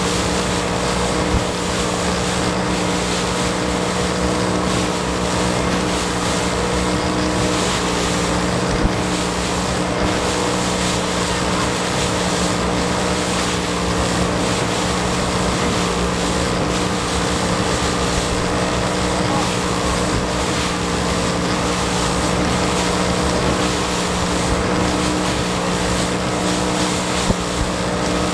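Evinrude 90 HP E-TEC two-stroke outboard running steadily at high speed, a constant engine tone under the rush of wind and water past the hull of a Flexboat SR 500 inflatable.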